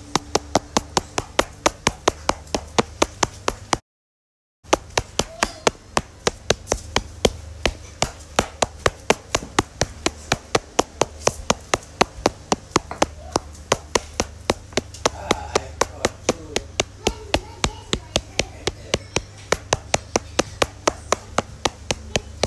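Steady, evenly spaced sharp taps, about three a second, over a low hum; the sound cuts out completely for under a second about four seconds in.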